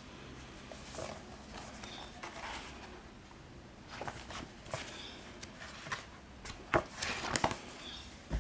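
Paperback manga volumes being handled: soft rustles and scattered taps of paper and covers, with a few sharper knocks around seven seconds in.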